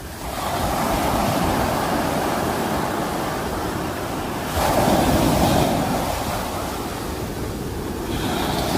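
Sea waves breaking as surf: a continuous rush of water that surges up as a new wave comes in about half a second in, most strongly about halfway through, and again near the end.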